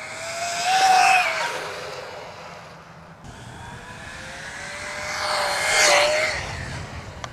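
Arrma Typhon Grom RC truck with a KingVal brushless motor and ESC running at high speed: the motor's whine climbs in pitch and grows loud as the truck comes close about a second in, fades, then rises again to a second peak around six seconds, over tyre noise on pavement.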